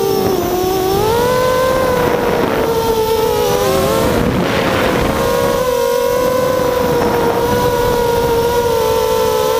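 Mini racing quadcopter's four 2208 2000kv brushless motors and propellers whining in flight, several close tones beating against each other. The pitch dips shortly after the start, then rises and holds nearly steady, while wind rushes over the onboard camera's microphone, swelling around the middle.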